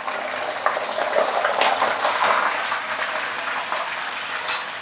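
Whole emperor fish deep-frying in smoking-hot oil in a wok: the oil sizzles and bubbles loudly with many sharp crackles. The splattering comes from water left on the fish, which was not wiped dry enough.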